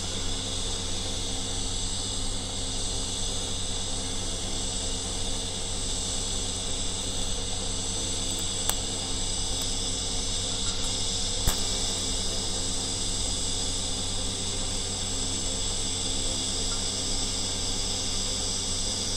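TIG welding arc buzzing steadily with a high hiss and a low hum underneath, during a vertical-up open root pass on V-grooved plate. Two faint ticks come in the middle.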